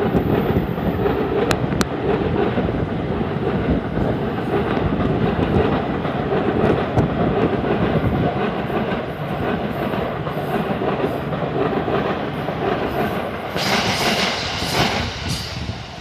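Electric commuter train in orange-and-green Shonan livery running past close by: a steady heavy rumble with the clatter of its wheels on the rails. A brief harsher, higher-pitched noise comes near the end.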